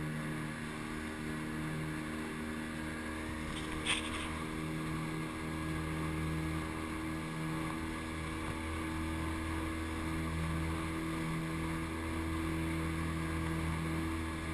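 A dive boat's engine running steadily with a low hum. A short sharp click sounds about four seconds in.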